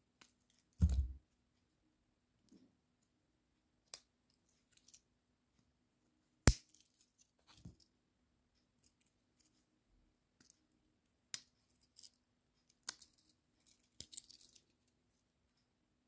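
Two small Swiss-Army-style pocket knives being handled, their little spring-backed tools opened and snapped: scattered sharp metal clicks, the loudest about six and a half seconds in, with a dull bump about a second in and light handling rustle between.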